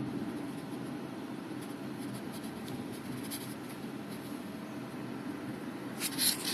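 Inside a 2013 Subaru Forester cabin on the move: a steady low road rumble with faint, brief high-pitched chattering from the sunroof, a louder burst of it about six seconds in. The cicada-like chirping is, as the owner suspects, the sunroof's pop-up wind deflector rattling with body vibration when stowed.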